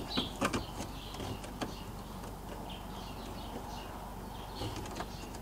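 A few light clicks and taps of plastic dash trim being handled and fitted into place by hand, mostly in the first two seconds, over a low steady background.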